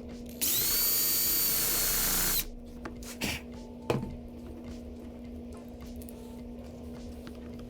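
A power drill-driver spins up and runs for about two seconds, its whine rising and then holding steady as it drives a small wood screw into wood. Two short knocks follow a second or so later.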